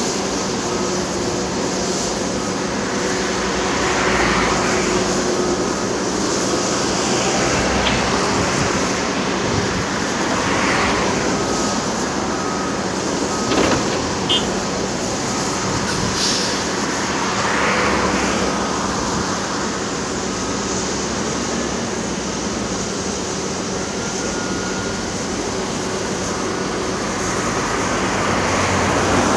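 Diesel engines of construction machinery running with a steady hum, mixed with the noise of traffic, which swells several times as vehicles pass.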